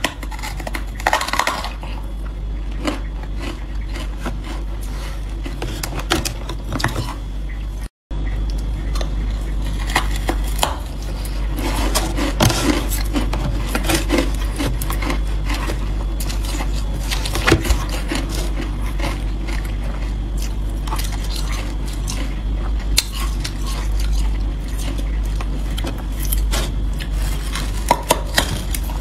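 Close-miked crunching and chewing of carbonated ice: a run of sharp crackling bites and crunches, broken by a brief cut-out about a third of the way through, over a steady low hum.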